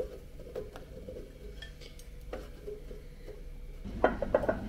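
Kitchen handling sounds: a few faint clicks, then near the end a quick run of knocks and clinks as a glass pickle jar is handled and set on the stone countertop.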